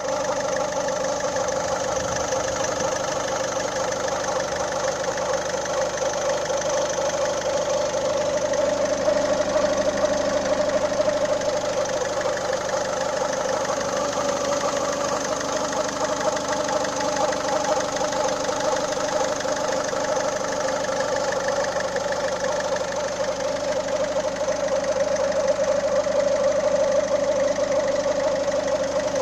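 Citroën C4 1.6 HDi turbodiesel engine idling, with a rubbing squeak from the timing side that keeps the same steady rhythm and cadence. It is an unexplained noise that the owner says goes away as soon as the revs rise even slightly.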